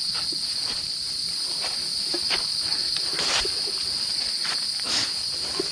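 A steady, high-pitched drone from a chorus of forest insects, with scattered short crunches and taps of footsteps on the trail.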